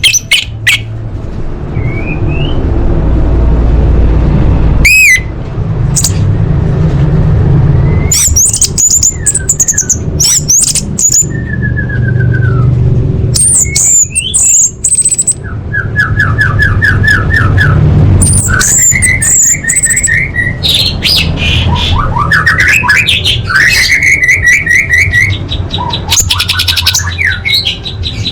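Orange-headed thrush singing a varied, loud song: sharp clicks, sliding whistles and rapid stuttered trills, phrase after phrase, over a steady low rumble.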